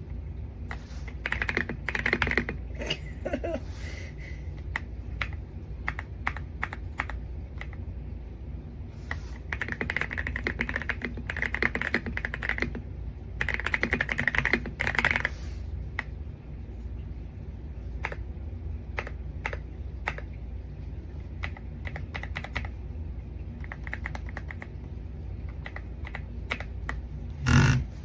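Typing on the YUNZII X98 wireless mechanical keyboard: clacking keystrokes in uneven runs, several quick flurries of fast typing with sparser single presses between, and one louder thump near the end.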